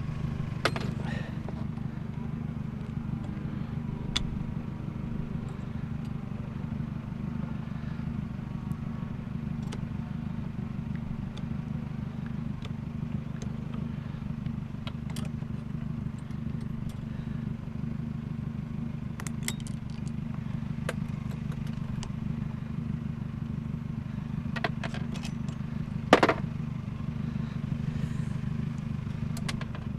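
A steady low engine hum, like an idling vehicle, with scattered sharp clicks and knocks of metal being worked. The loudest knock comes near the end.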